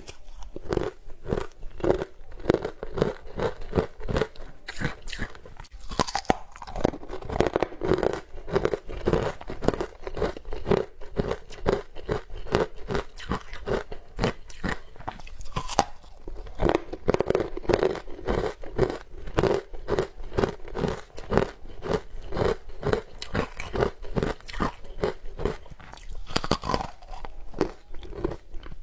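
A person biting and chewing bars of green powder-coated sweet ice, a rapid run of crunches, several each second.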